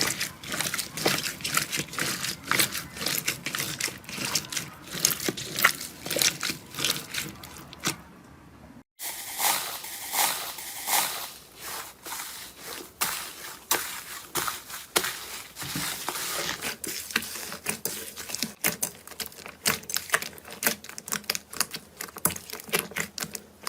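Slime being squished and pressed, making dense, irregular crackling and popping clicks. The sound cuts out for a moment about nine seconds in, then resumes in the same manner.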